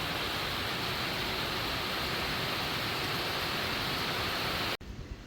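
Heavy rain falling steadily, a dense even hiss. It cuts off abruptly near the end, giving way to a much quieter background.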